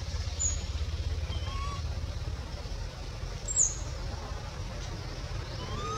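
Infant macaque giving weak, short rising-and-falling coos, about a second and a half in and again at the end, over a steady low rumble. A sharp high chirp about three and a half seconds in is the loudest sound.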